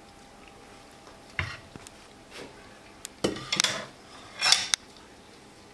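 Clinks and knocks of kitchenware being handled on a countertop: several sharp hits after a quiet start, the loudest about four and a half seconds in.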